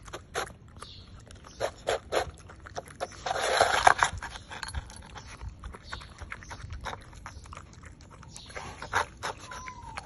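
Puppy eating from a plastic bowl: irregular wet chewing and smacking clicks, with a louder rustling burst about three to four seconds in.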